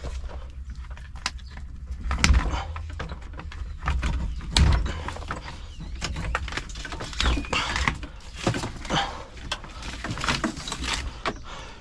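Plastic harness clips and a plastic cable guide being pried and wrenched off a truck's wiring harness: irregular clicks, snaps and rattles, with heavier thumps about two and about four and a half seconds in.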